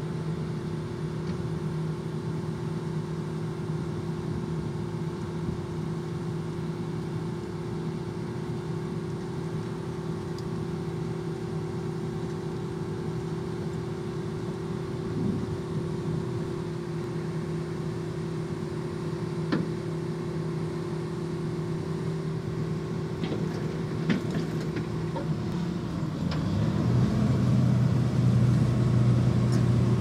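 John Deere S670i combine harvester's diesel engine running steadily while harvesting rice. Near the end the engine note drops lower and grows louder.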